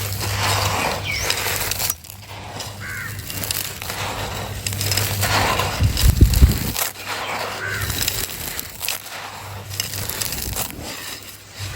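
Dry, dusty sand-and-cement texture being crushed and crumbled in a clay pot, crunching and crackling in bursts, with a louder crunch about six seconds in. Crows caw a few times in the background.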